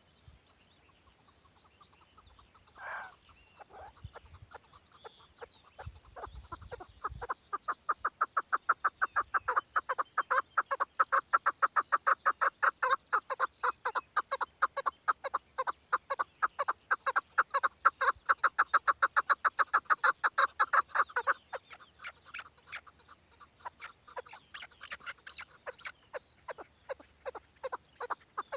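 Chukar partridge calling: a long, rapid run of repeated clucking "chuk" notes. The calls build up a few seconds in, are loudest through the middle, then thin out to scattered notes near the end.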